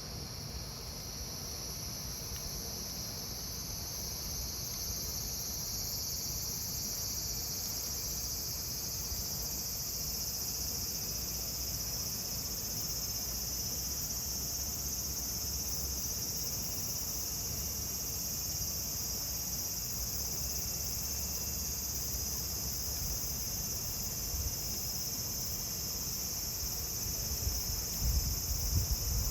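Cicadas singing in a steady, high-pitched drone that swells over the first several seconds and then holds, with a few brief low knocks near the end.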